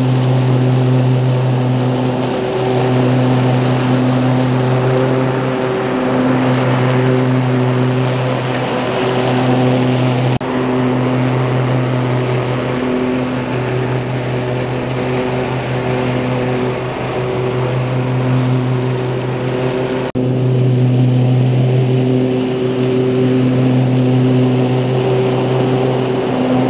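Cub Cadet Ultima ZT1 50 zero-turn mower running steadily with its blades engaged, mulching and blowing dry leaves out of the side discharge. The steady engine hum jumps abruptly twice, about 10 and 20 seconds in.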